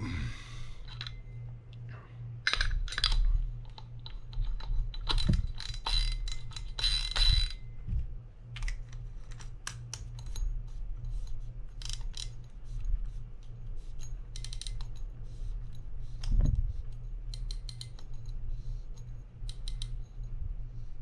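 Irregular small clicks and metallic clinks of parts and tools being handled on a Penn Spinfisher 750SS spinning reel during its rebuild, over a steady low hum.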